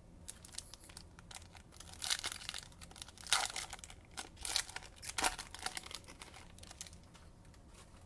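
Trading-card pack wrapper being torn open and crinkled in the hands, in irregular crackling bursts that die away about six seconds in.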